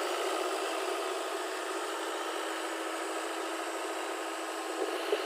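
An engine running steadily, with a short knock about five seconds in.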